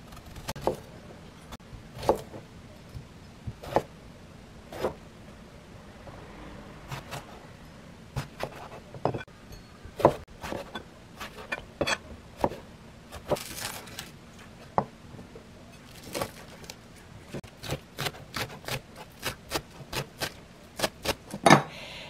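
Kitchen knife cutting eggplants and knocking on a plastic cutting board: single knocks a second or more apart at first, then a quick run of chopping strokes in the second half as green onions are cut.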